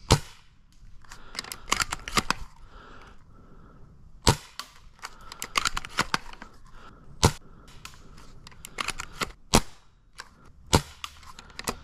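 Airsoft sniper rifle firing single shots, several sharp cracks a few seconds apart, with quieter clicks and rattles between them.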